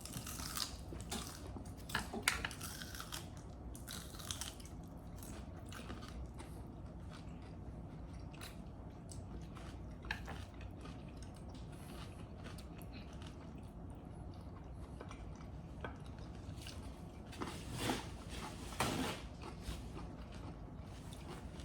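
Raw celery being bitten and chewed close to the microphone: irregular crisp crunches, frequent in the first few seconds, sparse in the middle, and clustering again near the end.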